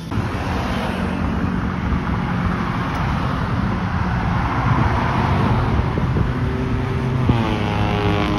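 Road traffic on a highway: a steady rush of tyre and engine noise that swells about halfway through. A steady pitched tone joins near the end.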